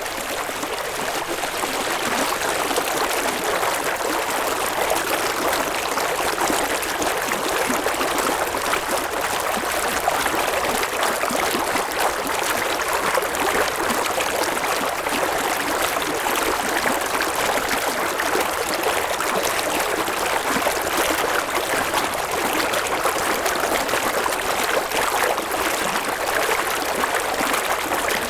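River water flowing over rocks: a steady, even babble and trickle of a small river or stream.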